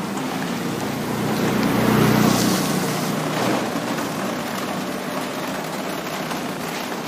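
Outdoor street ambience on a wet road: a steady hiss that swells into a louder rumble about two seconds in, then settles back.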